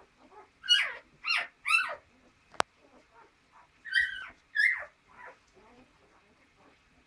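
Week-old standard poodle puppies crying: loud, high squeals that slide down in pitch, three in quick succession and then two more a couple of seconds later, with fainter whimpers between, from hungry pups. A single sharp click sounds between the two groups.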